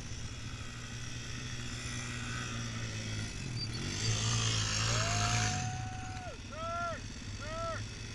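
ATV engines: a quad idling low and steady close by while another quad rides past with a rush of noise, holds its revs for about a second, then drops off and gives two quick throttle blips.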